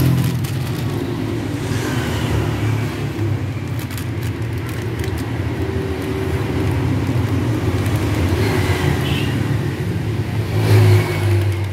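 Steady low drone of a motor vehicle engine running, with plastic sachets crinkling and tearing just before the start and again near the end.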